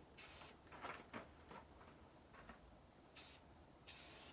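Aerosol spray paint can hissing in three short spurts: one just after the start, then two more near the end, the last about half a second long.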